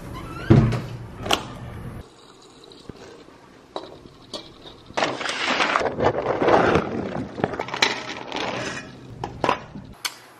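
Dry dog kibble rattling and rustling as a hand scoops it out of a paper food bag, most densely for a couple of seconds around the middle, with scattered knocks and clicks around it.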